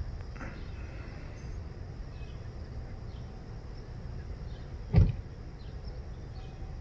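Low rumbling outdoor background with faint, short high chirps, and a single thump about five seconds in.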